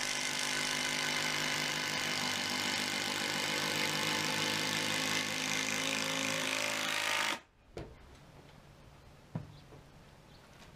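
Power driver running steadily under load, driving a fastener into oak pallet wood, then cutting off abruptly after about seven seconds; a few faint knocks follow.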